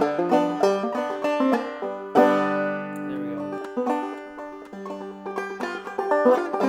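Open-back banjo played clawhammer style: a run of quick plucked notes, with a full chord struck about two seconds in that rings on for about a second before the picking resumes.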